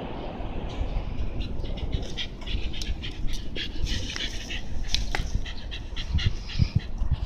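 Shiba Inu panting in quick, short breaths with its tongue out, over a steady low rumble of street noise.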